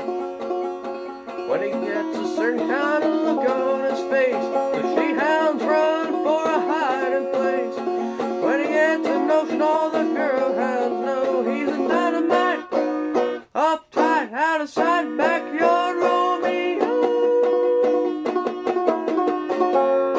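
Five-string banjo played clawhammer style, tuned in open G and lowered a half step, picking the melody over a steady drone string, with a brief break about two-thirds of the way through.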